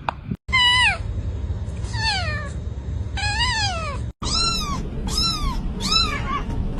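Kitten meowing over and over: six short, high meows, each falling in pitch at its end.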